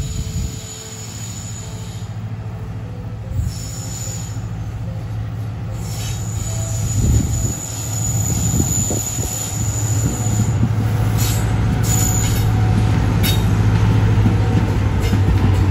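Diesel shunting locomotive hauling a freight train past, its engine growing louder as it draws near. High-pitched wheel squeal comes and goes through the first ten seconds or so, with a few sharp clicks of wheels over the rail joints later on.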